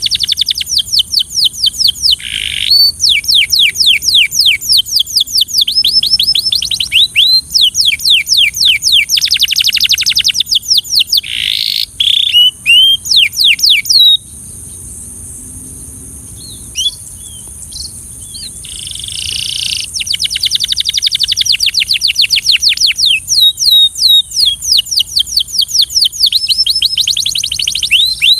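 Canary singing in long, fast trilled rolls of quickly repeated down-sweeping notes, changing tempo from roll to roll. About halfway through the song drops to a few scattered notes for several seconds, then the rapid rolls start again.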